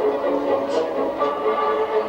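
Violins playing a melody in held notes.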